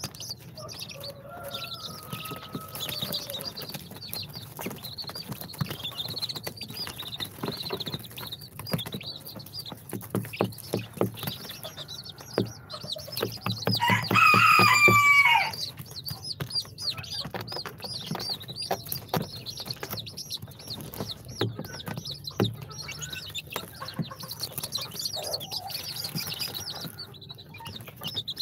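A group of young chicks peeping continuously with many short, high, falling chirps, and short taps mixed in. About halfway through, one louder, longer call comes from a chick right at the microphone.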